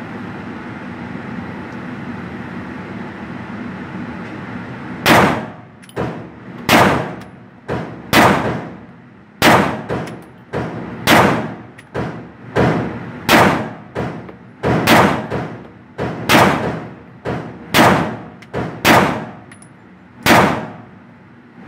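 Glock 19 9mm pistol fired in steady slow fire in an indoor range, about twenty shots a little faster than one a second, each with a short echo off the walls. The shooting starts about five seconds in, after steady background noise.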